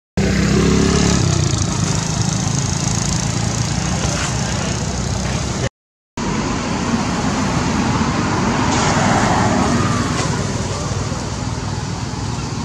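Steady road traffic noise, with a motor vehicle passing about a second in, its low hum falling in pitch. The sound drops out completely twice for a split second.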